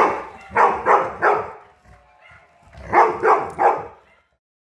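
A dog barking in two quick volleys: four sharp barks in the first second and a half, then, after a short lull, three more about three seconds in.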